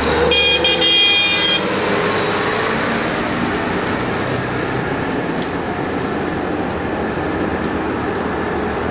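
Combine harvester machinery running steadily in the field, a constant mechanical din with a steady high whine. A short cluster of high steady tones sounds in the first second and a half.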